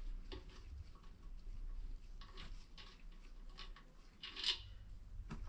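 Warm compressor oil draining from the pump sump into a plastic tub: faint, irregular dripping and patter, with a brief louder rustle about four and a half seconds in.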